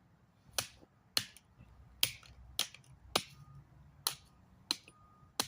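A potato masher striking a can against concrete to flatten it, eight sharp blows about one every three-quarters of a second.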